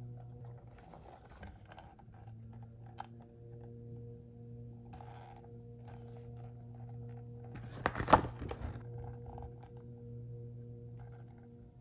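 Paper and plastic packaging handled by hand, with light rustles and small clicks, and a brief burst of loud crackling about eight seconds in. A steady low electrical hum sits underneath.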